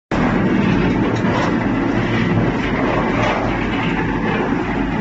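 Concrete mixer machine running with a loud, steady engine drone and mechanical rumble.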